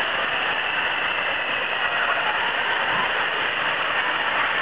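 Steady rushing of falling water, a constant even noise with no breaks.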